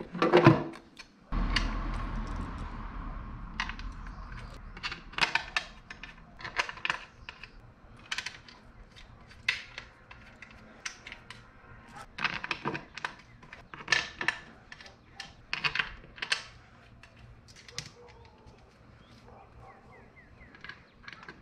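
Sharp metallic clicks and clinks at irregular intervals as a metal top intake cover is set onto a J-series V6 and its bolts are dropped in and placed by hand.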